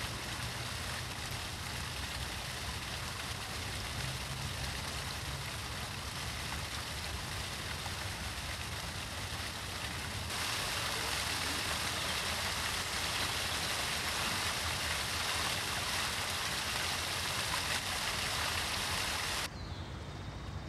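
Steady rush of running water, which grows louder about halfway through and drops off sharply near the end.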